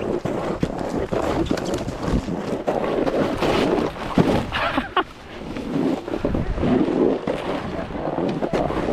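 Snowboard sliding and carving over snow, a rushing scrape, with wind buffeting the microphone.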